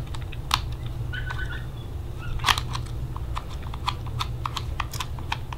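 Light irregular clicks and taps of fingers handling and unscrewing a plastic PEQ-15-style airsoft battery box, sparse at first and coming several a second in the second half.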